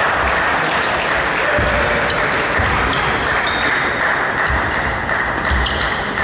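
Badminton rally: rackets strike the shuttlecock again and again, and court shoes squeak sharply on the sports floor. Under them runs a loud steady hiss.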